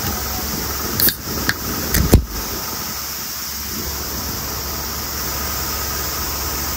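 Large electric fan blowing strongly with a loud, steady whirring, and a few sharp knocks and clicks about one to two seconds in, the loudest just after two seconds.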